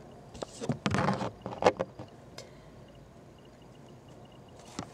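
Handling noise as a handheld camera and a LEGO model are moved: a brief rustle with knocks about half a second in, then a couple of sharp plastic clicks, then quiet room background.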